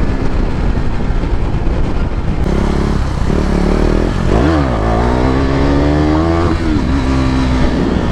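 KTM 390 Duke single-cylinder engine running under way, with heavy wind rush on the microphone. About four seconds in the revs dip sharply, then climb steadily for about two seconds before falling away again.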